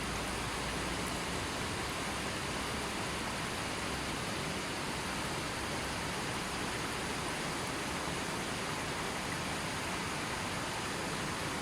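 Steady rushing of a gently flowing river, an even wash of water noise with no birds or other sounds.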